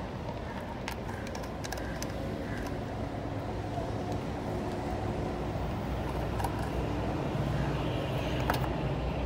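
Steady low engine rumble, like a vehicle running nearby, growing a little stronger in the second half, with a few light metallic clicks from transmission parts being handled.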